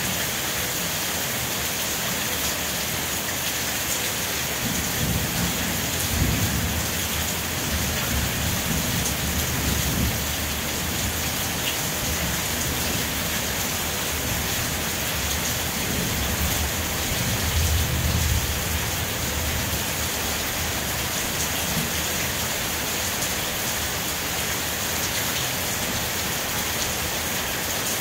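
Steady rain falling, with distant thunder rumbling low twice: a long roll starting about five seconds in and a second one past the middle.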